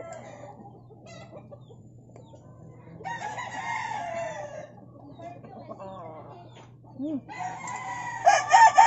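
Rooster crowing: one crow about three seconds in that falls in pitch, and a louder crow near the end.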